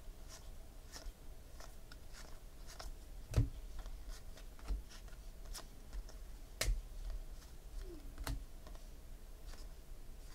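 Baseball trading cards being slid and flipped through the hands one at a time, a scatter of soft clicks and rustles, with three louder knocks spread through the middle and later part.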